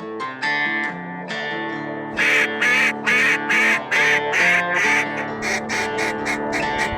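Background music with plucked guitar notes, and over it, from about two seconds in, a steady run of loud duck quacks, two to three a second.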